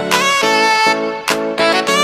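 Background music: a saxophone-like melody, quick notes changing several times a second.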